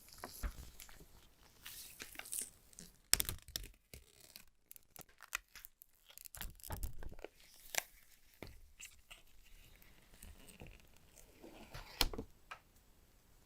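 Phone packaging being handled: irregular tearing and crinkling of wrapping, with scattered sharp clicks and taps, loudest about three seconds in and again near the end.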